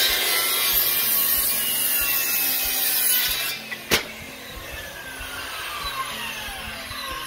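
Corded circular saw cutting through the end of a wooden pergola rafter for about three and a half seconds. A sharp snap comes about four seconds in, then the blade spins down with a falling whine.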